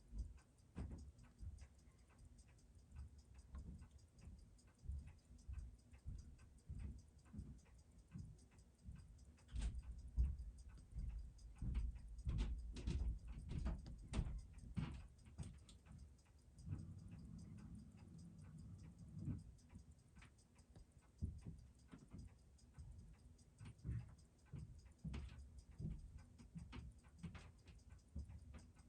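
Seiko 6139 automatic chronograph movement ticking rapidly and steadily while running on test, its beat picked up by the timing machine. Some heavier knocks and thumps come midway.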